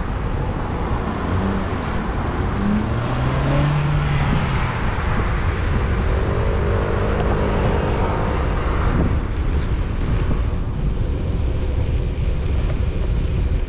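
Wind rushing and buffeting over the microphone of a rider moving along a road, mixed with the engines and tyres of nearby car traffic. An engine hum comes up briefly about three seconds in, and another vehicle hum is heard from about six to eight seconds.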